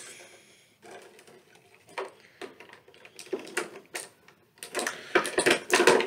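Scissors snipping and clicking as they cut an action figure's twist ties in its packaging: a scatter of sharp clicks, coming faster and louder in the second half.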